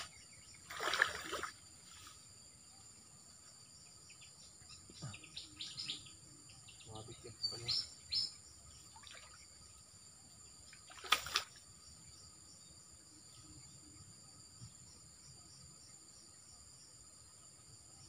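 Steady high insect buzz, with a few brief splashes and rustles of a person wading in shallow water among reeds: one about a second in, a cluster in the middle, and a louder one after about eleven seconds.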